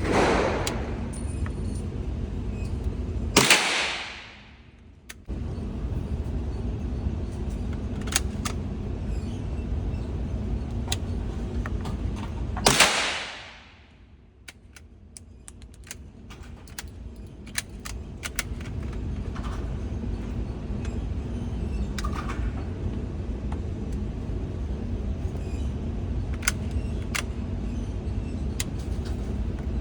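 Three .22 LR shots from a bolt-action rifle: one at the start, one about three and a half seconds in, and one about thirteen seconds in. Faint clicks in between, over a steady background rumble.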